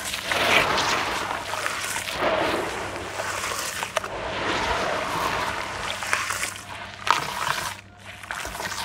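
Hands squeezing and swishing crumbled red clay in a plastic basin of muddy, foamy water, with the water sloshing and splashing in repeated swells, a few sharp clicks, and a short lull near the end.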